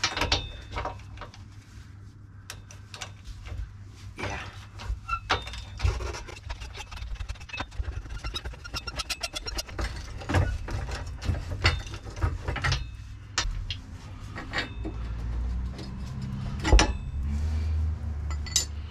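Ratchet wrench clicking in quick runs as it backs off a freed leaf-spring U-bolt nut, with scattered metal clinks and a steady low hum underneath.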